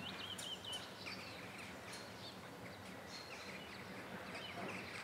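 Faint birdsong: small birds chirping and twittering now and then over quiet outdoor background noise.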